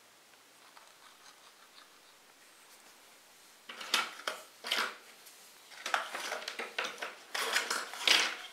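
Quiet room tone for about three and a half seconds, then an irregular run of clicks, taps and rustles as tools and parts are handled and moved on the workbench.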